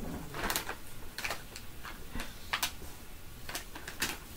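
A plastic dog-treat bag crinkling as it is handled, in short irregular crackles.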